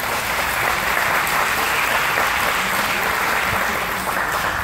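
A small audience of seated parents and children clapping, a steady applause that eases off slightly near the end.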